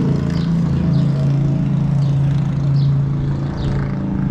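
Steady low motor hum with a few short, faint, high chirps scattered through it.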